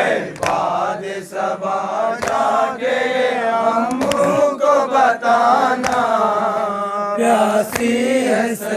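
A crowd of mourners chanting a Muharram noha together. Sharp hand-on-chest matam strikes keep a beat about once a second.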